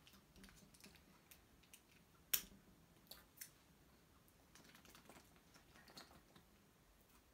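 Quiet, scattered small clicks as slime is squeezed and worked in the fingers, with one sharper click a little over two seconds in.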